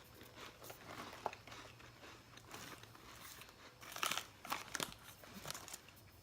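A person faintly chewing a crisp, flaky Lu Petit Cœur chocolate-filled biscuit, with irregular crunching clicks that are loudest about four to five seconds in.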